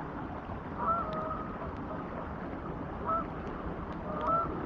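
Steady hiss of heavy rain, with a few short honking calls from a duck: one about a second in, one just past three seconds and one near the end.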